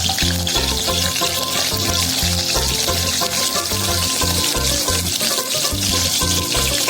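Background music with a steady bass beat over a steady hiss of pakora batter sizzling as it deep-fries in hot oil.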